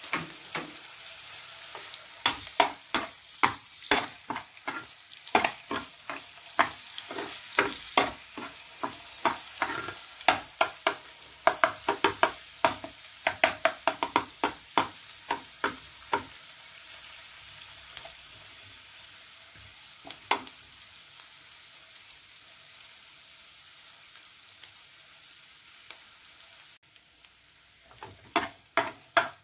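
Garlic frying in hot oil in a pan, sizzling steadily, with a utensil clacking and scraping against the pan as it is stirred. The clacks come thick and fast for about the first half, thin out, then pick up again near the end. The garlic has just gone in and is not yet browned.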